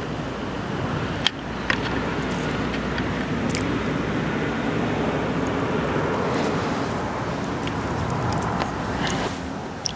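Steady low rumble of distant traffic, with two sharp clicks a little over a second in.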